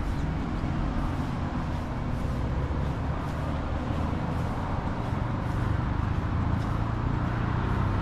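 City street ambience: a steady rumble of road traffic.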